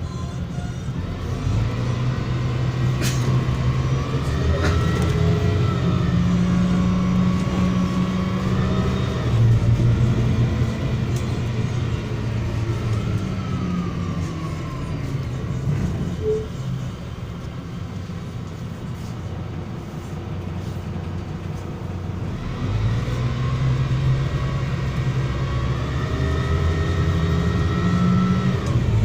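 MAZ-103 city bus's diesel engine and gearbox heard from inside the bus: pulling away and speeding up through the gears, easing off and slowing in the middle, then speeding up again near the end. A whine from the drive follows the road speed up and down.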